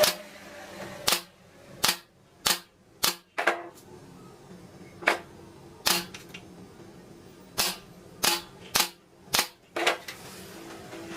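About a dozen sharp, separate knocks at uneven intervals, some in quick pairs, typical of striking wood or a tool during hand woodworking.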